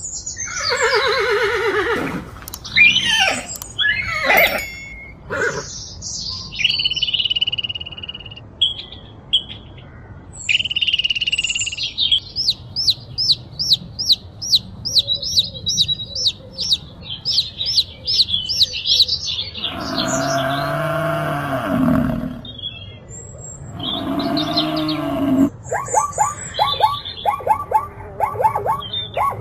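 A series of different animal calls one after another: pitched calls falling in pitch in the first few seconds, then a bird's whistled notes and a long run of rapid repeated chirps, then two longer, deeper calls and a fast train of short repeated calls near the end.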